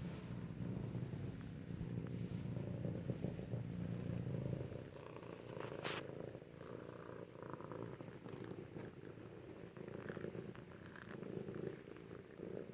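Kittens purring close to the microphone, a steady low rumble that grows fainter after about five seconds, with one sharp click near six seconds.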